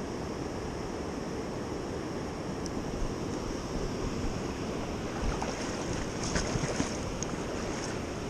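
Steady rush of flowing creek water, with a few faint brief clicks from about three seconds in.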